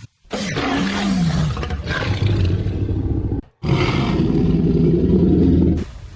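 Two long Tyrannosaurus rex roars from the Jurassic Park sound effects, dubbed over the Carnotaurus. They follow each other with a brief gap, the first about three seconds long with a falling, bending pitch, the second a little shorter.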